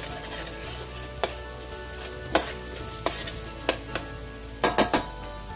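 Thick masala paste sizzling in a stainless steel pot as it is stirred with a spatula. The spatula knocks against the pot about once a second, with a quick run of three knocks near the end.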